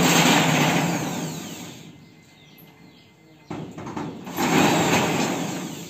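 A power tool runs twice at the shaft of a homemade rice thresher, spinning its spiked drum. Each run comes up quickly and fades out gradually over a couple of seconds; the second starts about three and a half seconds in.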